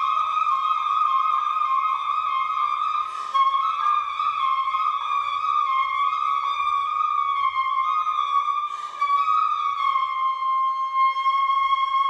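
Unaccompanied concert flute holding long, high, steady notes that shift slowly in pitch, with a fainter lower tone under it at times. Two short breaths break the line, about three and nine seconds in.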